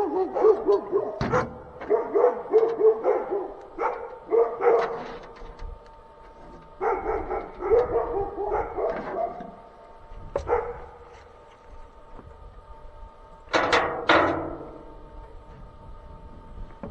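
Dogs barking in quick runs of short barks, broken by pauses, with a louder, sharper pair of barks about two thirds of the way through.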